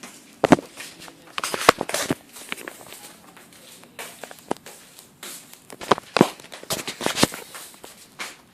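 A string of irregular knocks and clicks, the loudest about half a second in and again around six seconds in.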